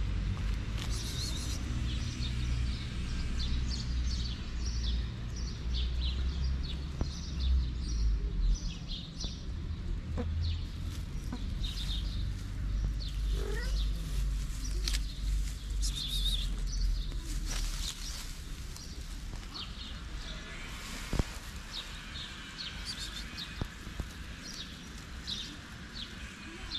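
Birds chirping repeatedly in short, high calls, over a low rumble through roughly the first half, with a single sharp click about twenty seconds in.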